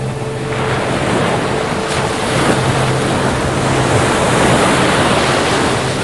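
Ocean surf: breaking waves that swell over the first few seconds and ease off near the end, with faint steady low tones underneath.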